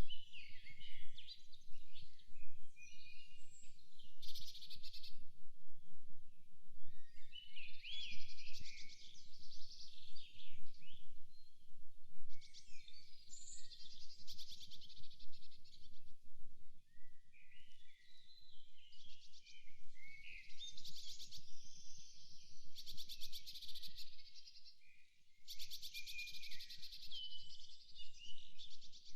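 Several songbirds singing at once, overlapping chirps and warbling phrases with repeated short, fast, high trills, over a faint low rumble.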